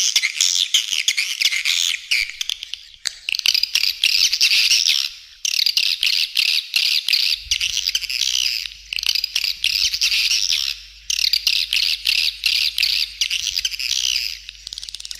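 Swiftlet calling-sound lure track: dense, rapid, high-pitched twittering of a swiftlet colony, in phrases of a few seconds broken by brief pauses about five and eleven seconds in. It is made to be played from speakers at a swiftlet house to draw swiftlets in.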